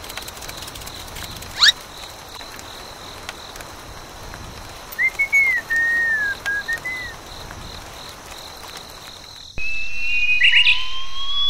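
Cartoon sound effects: a quick rising swoosh, then a short whistled tune of a few gliding notes over a faint steady high tone. Near the end the sound changes suddenly to long rising glides.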